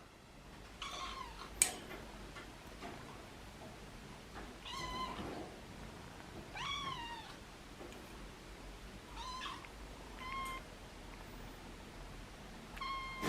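A kitten meowing repeatedly in short, high-pitched cries, about six in all, a couple of seconds apart. A single sharp click sounds about a second and a half in.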